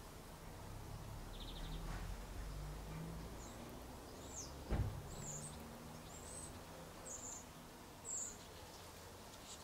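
Outdoor garden ambience with a small bird giving a string of short, high chirps, over a low steady rumble. A single dull thump comes about five seconds in.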